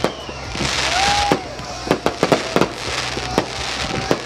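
Fireworks display: a run of sharp bangs from bursting shells at irregular intervals, with a crackling hiss of glittering stars between them.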